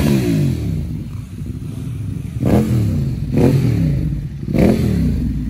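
Several middleweight street motorcycles idling together, with the throttle blipped about four times so the engine note jumps and then falls back.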